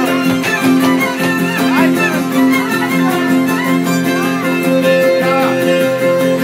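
A ceteră, the Romanian folk fiddle, plays a fast, ornamented dance tune over a steady drone, backed by an acoustic guitar strumming an even rhythm.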